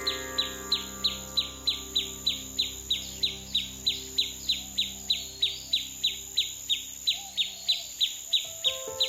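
A short, high chirp repeated steadily about three times a second, over a sustained drone of held tones.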